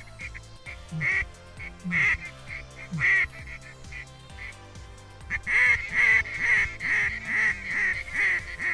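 Duck quacking: a few single quacks, then a quick run of about eight quacks near the end, over background music.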